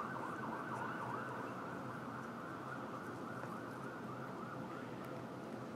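Faint siren wailing steadily, its pitch sweeping up and down over and over.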